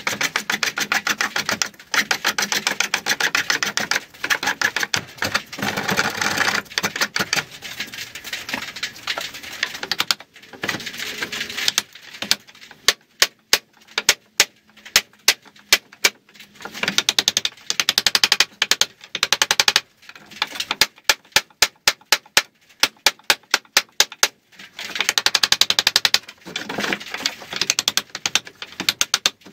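Hand plane rasping over a thick live-edge board in quick strokes, alternating with runs of sharp mallet blows on a chisel, about four or five a second, chopping away a knot the plane won't take.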